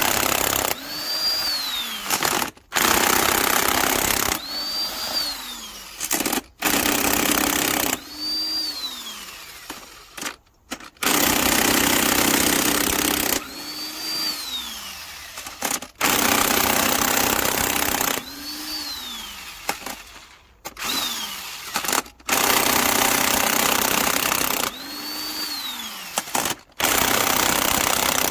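Cordless impact wrench hammering on a stubborn cylinder-head bolt in repeated bursts of a couple of seconds, about every four seconds. After each burst the motor whine falls away as the trigger is released; the bolt is not yet giving.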